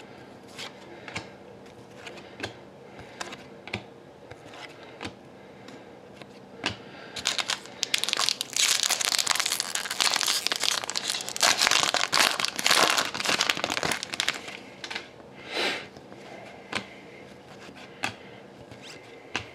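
Trading cards handled with light scattered clicks, then a hockey card pack's foil wrapper crinkled and torn open for several seconds in the middle, with another short crinkle a little later.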